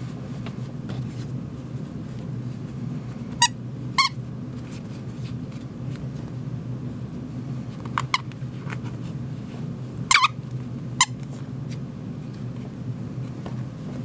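Toy squeaker insert for a stuffed animal squeaking as it is squeezed in the hand: five short squeaks, one near the end slightly longer, over a steady low hum.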